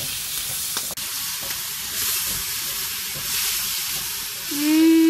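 Vegetables sizzling in hot oil in a wok, stirred with a wooden spatula, with one sharp knock about a second in. Near the end a voice hums a long "mmm".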